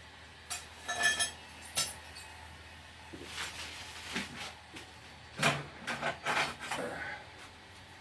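Pieces of forged steel clinking and knocking together as they are handled and set down: a few separate clinks in the first two seconds, one of them ringing briefly, then a cluster of knocks and rattles later on.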